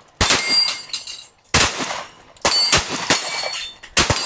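SIG P365 micro-compact pistol firing a string of about eight shots, mostly in quick pairs, each a sharp crack with a short echo. Some shots leave a thin ringing tone behind them, from steel targets being hit.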